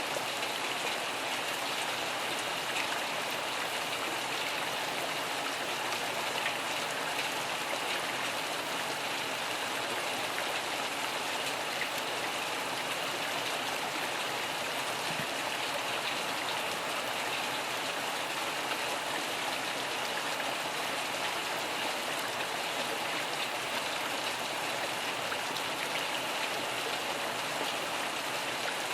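Steady rain falling, an even hiss of drops with faint patters on a surface.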